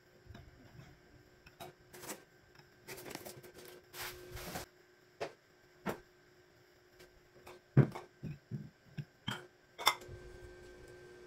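Small white bowls being handled: lifted out of a cardboard box with cardboard scraping and rustling, then set down on a table and on a stack of plates with a series of light knocks and clinks. Two sharp clinks, one about two-thirds of the way through and one near the end, are the loudest.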